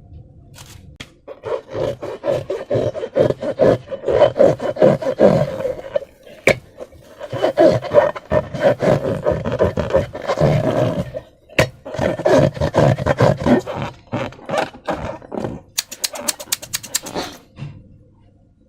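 Slime and rubber balloons being squeezed and rubbed: dense crackling, squishing rubs in three long stretches, then a quick run of sharp clicks near the end.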